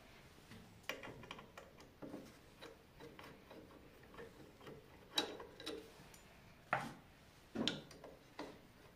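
Scattered small metal clicks and taps as a hex key works the knife-clamping screws on the cutter block of a Belmash 2200 thickness planer, loosening them to change the knives. A few sharper clicks come in the second half.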